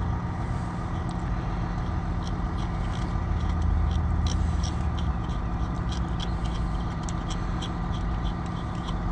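Steady low hum of an idling engine, with small scattered light clicks as a brass air-hose fitting is handled and threaded onto the hubcap tee valve of a tire self-inflation system.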